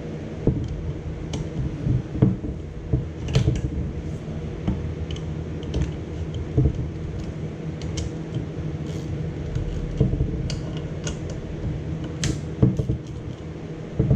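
Irregular metallic clicks and clanks of hand tools and parts being worked on a turbocharger, as its housing bolts are loosened, over a steady low hum.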